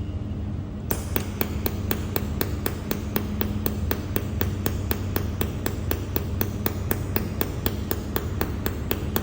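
300 W mold-repair laser welding machine firing pulses: a sharp tick with each pulse, about five a second, starting about a second in, over a steady low machine hum.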